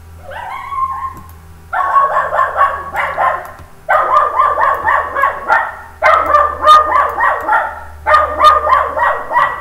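An animal calling loudly: a short rising whine near the start, then five runs of rapid, repeated calls, each lasting one to two seconds.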